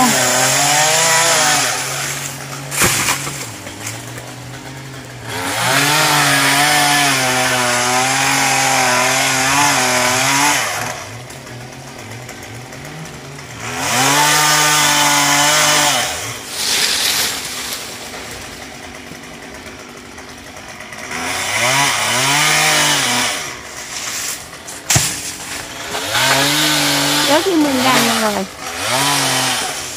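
Chainsaw cutting into a coconut palm, revving up under load in about five loud bursts with its pitch wavering. It drops back to a lower idle between the cuts.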